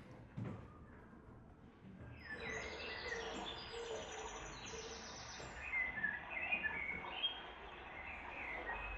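Forest ambience of many birds chirping and trilling, starting about two seconds in over a steady bed of noise, with a short thump just before.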